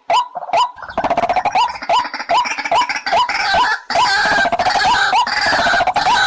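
White-breasted waterhen calling: a run of short, repeated rising notes, two to three a second, joined from about a second in by denser, harsher calling over them.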